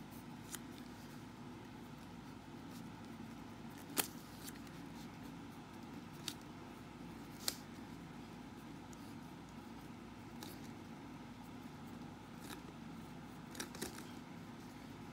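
Pen writing on paper: faint scratching with scattered sharp taps of the pen tip, the loudest about four seconds in, over a steady low hum.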